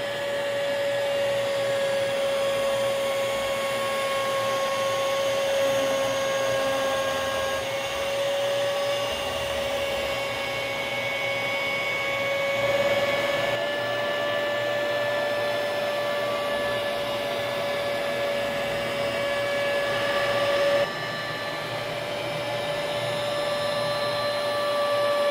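Small 3040 CNC router's spindle running with a steady high whine while its 1/16-inch end mill cuts through 1/4-inch Baltic birch plywood. The sound shifts abruptly twice, about halfway through and again later.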